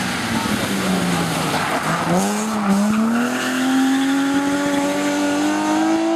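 BMW E30 rally car engine easing off with tyre noise as the car slides, then accelerating hard from about two seconds in, its pitch climbing steadily in one long pull.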